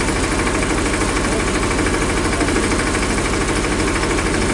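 An engine idling steadily, with an even low pulsing beat and no change in speed.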